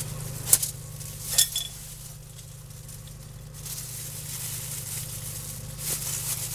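Hand-rolling raw pork meatballs in disposable plastic gloves: the gloves crinkle and a metal tablespoon clinks against a glass mixing bowl, with two sharp clicks in the first second and a half. A steady low hum runs underneath.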